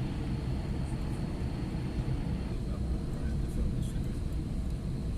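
Steady cabin noise inside an Airbus A320 airliner: an even low rumble of the engines and airflow with a faint steady high whine.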